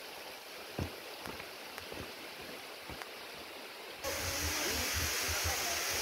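Mountain waterfall rushing, heard faintly at first with a few sharp clicks, then suddenly much louder and closer about two-thirds of the way through.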